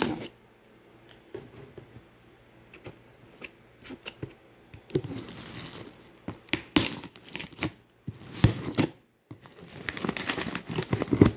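Cardboard shipping box being cut open: a blade scraping and slitting along the packing-tape seal, with tearing and crinkling of plastic wrapping. The sound comes in irregular bursts, faint at first and busier and louder in the second half.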